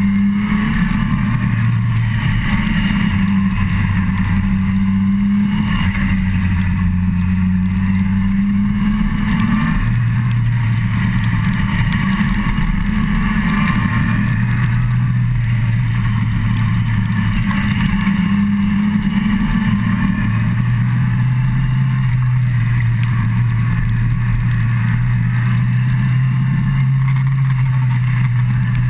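Yamaha FZ1's inline-four engine running under way on the motorcycle, its pitch stepping up and down several times as the speed changes, over a steady rush of wind and tyre noise on the wet road.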